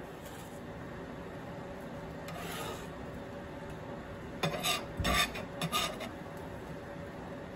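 Metal bench scraper scraping diced onion across a plastic cutting board: a faint scrape, then a run of short, louder scrapes a little past halfway as the onion is scooped up.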